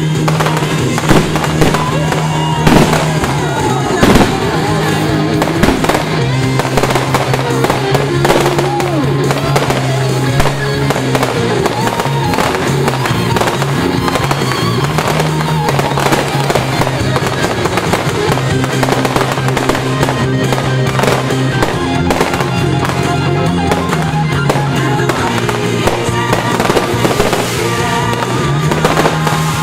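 Fireworks display: shells bursting with repeated bangs and crackles over music with sustained chords, the loudest bangs about one, three and four seconds in.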